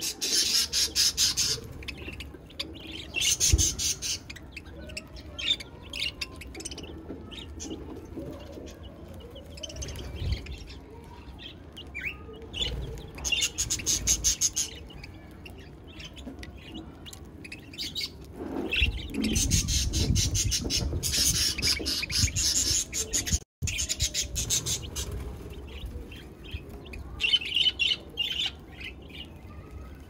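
Budgerigars and chicks chirping: repeated bursts of rapid, high chattering chirps a few seconds apart, the longest about two-thirds of the way through.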